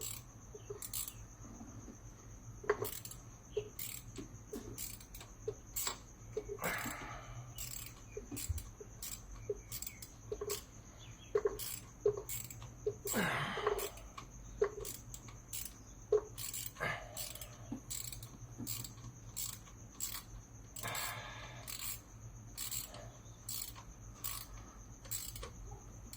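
Small clicks, knocks and scrapes of hand work on an engine's coolant hose and its clamp, with a few longer rustling scrapes. Behind them a steady high-pitched chirping pulses evenly, about one and a half times a second.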